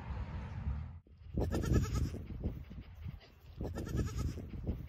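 A Nigerian Dwarf goat kid bleating twice, two short calls about two seconds apart.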